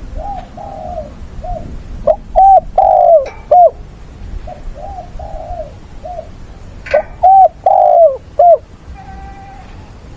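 Spotted dove cooing, a caged decoy bird calling to lure and challenge wild doves. Phrases of repeated arching coo notes come in turn, two of them loud and the others fainter, with a short, steadier note near the end.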